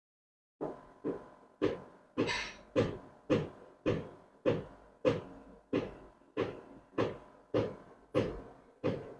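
Hand milking a cow into a pail: milk streams squirting in a steady rhythm of about two squirts a second, starting suddenly just after the start.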